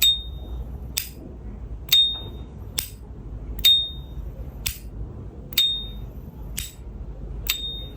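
S.T. Dupont lighter's lid worked open and shut again and again: five bright, ringing pings, each followed about a second later by a short dry click, in a steady rhythm.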